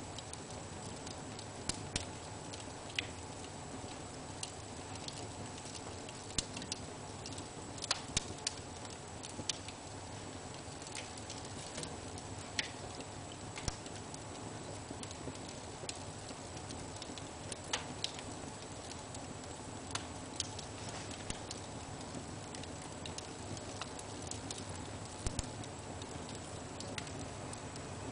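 Wood fire burning in a fireplace, crackling: irregular sharp pops and snaps, sometimes two or three close together, over a steady hiss.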